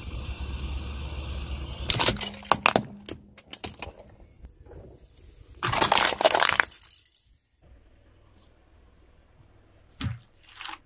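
Car tyre rolling over and crushing plastic objects, starting over a low engine rumble. There is a quick run of sharp plastic cracks about two seconds in, and a longer, loud crackling crunch a few seconds later as a plastic bottle bursts under the tyre. A single dull thump comes near the end.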